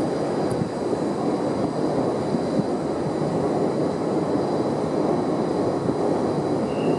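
Freight train behind an EF200 electric locomotive rolling past: a steady rumble of wagon wheels on the rails.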